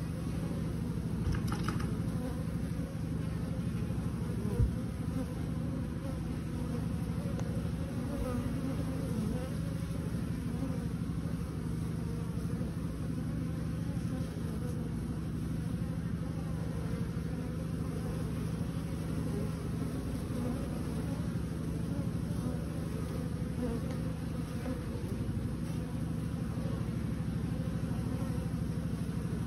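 Steady hum of many honeybees buzzing together in a colony, with a single short knock about four and a half seconds in.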